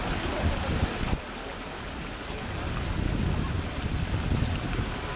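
Outdoor ambience: a steady hiss with gusty wind rumble on the microphone, the hiss dropping suddenly about a second in.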